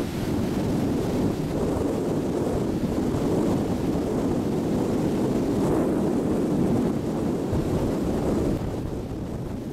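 Wind buffeting the microphone on the deck of a moving cruise boat: a steady, loud roar of low noise that eases a little near the end.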